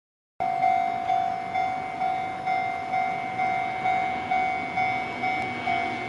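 Japanese railway level-crossing warning alarm ringing: an electronic bell tone struck about twice a second, each stroke fading before the next, starting just under half a second in.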